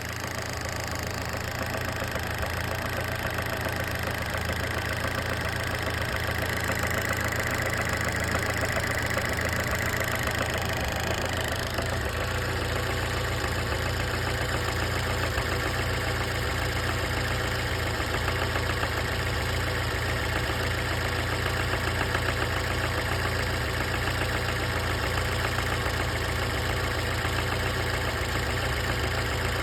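1996 Fiat Punto Mk1 Cabrio engine idling steadily with a fast, rhythmic knocking noise running through it. About twelve seconds in, the low end of the sound grows stronger.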